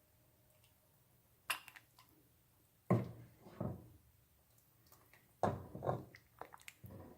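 Chicken curry being ladled from the pot into a bowl: a light clink of the ladle about a second and a half in, then several soft wet plops and knocks as the thick stew drops into the bowl.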